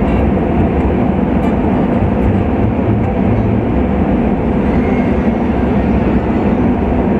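Vehicle on the move at a steady cruising speed: an even, loud rumble of engine and road and wind noise.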